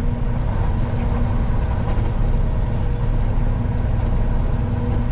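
Semi truck's diesel engine running steadily while driving, heard from inside the cab as a low, even drone with a steady hum, mixed with road noise.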